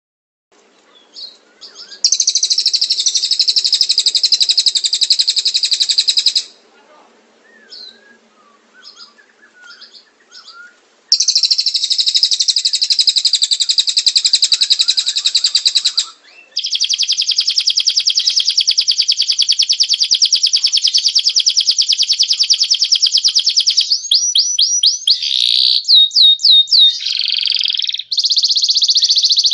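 Canary and cililin birdsong: long, very fast high trills lasting several seconds each, separated by a quieter spell of faint chirps. Shortly before the end comes a run of separate whistled notes sliding up and down.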